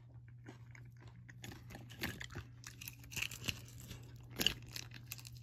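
Close-up chewing and crunching of crisp-skinned chicken feet: a run of irregular crisp crunches that grow louder about a second and a half in.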